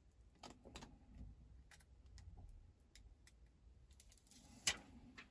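Faint, scattered clicks and taps of small plastic parts as hands handle a dashcam's power cable and plug, with one sharper click near the end.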